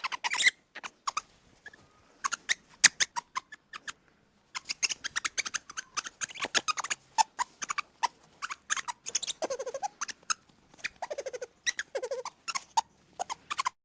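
A small animal squeaking and chittering: quick runs of short, sharp chirps, with a few brief wavering squeals about two thirds of the way through.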